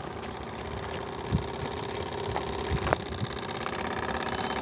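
Small steam engine of a Krick Anna model steam launch running steadily with a rapid, even beat, growing louder near the end. A couple of short knocks are heard in between.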